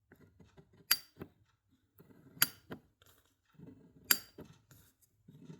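3/4-inch-drive Koken ratchet clicking as its handle is worked backwards in a back-drag test: four sharp clicks about a second and a half apart, with fainter ticks between them.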